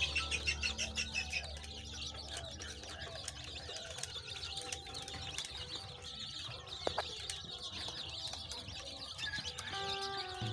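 A brood of five-day-old local (desi) chicks peeping continuously, many high chirps overlapping. A single sharp click comes about seven seconds in.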